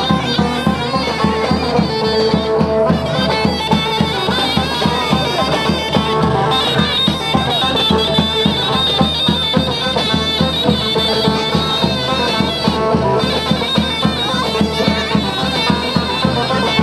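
Turkish folk dance music: a shrill zurna (double-reed shawm) playing a melody over the steady beat of a davul drum.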